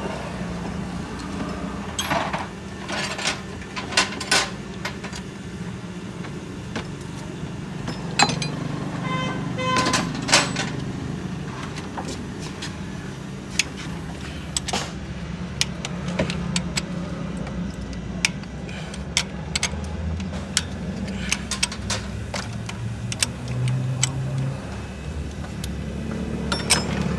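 Metal hand tools clinking and tapping at irregular intervals, sockets and spanners loosening bolts on a car engine, over a steady low hum of vehicle traffic.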